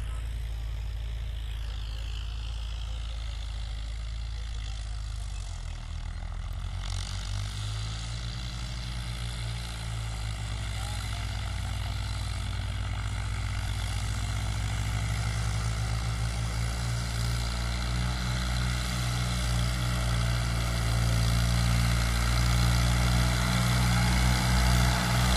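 Two farm tractors' diesel engines working under load, pulling cultivators through soil, a steady low drone that grows gradually louder as they approach.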